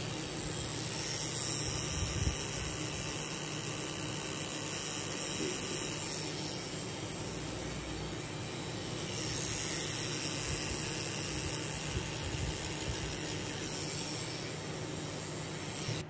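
Steady hiss of background room noise, unchanging throughout.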